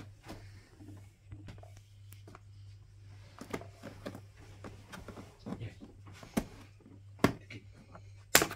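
Scattered clicks and light rustling from toy packaging being handled and pulled apart, with a few sharper snaps near the end, over a steady low electrical hum.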